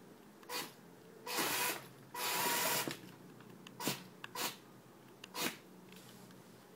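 Small electric gearmotors of a DIY tracked PackBot-style robot running in six short bursts of whirring, the two longest lasting around half a second to a second.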